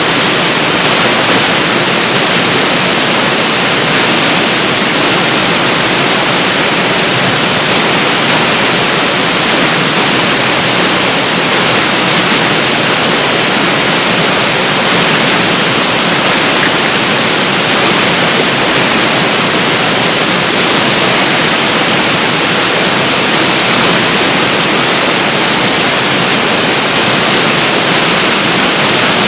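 Large artificial waterfall: a heavy curtain of water falling and crashing into the pool below, a loud, even, unbroken rush.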